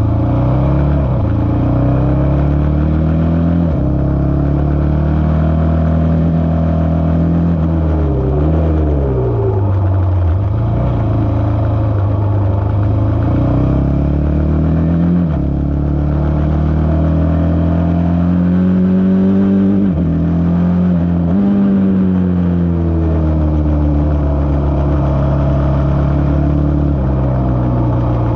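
Single-seater racing car's engine running hard through the gears, its pitch climbing under acceleration and dropping sharply at each gear change and under braking, several times over.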